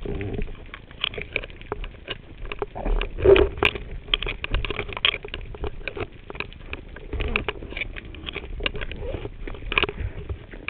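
Underwater ambience recorded below the surface: dense, irregular clicking and crackling over a low rumble, with a louder low thump about three seconds in.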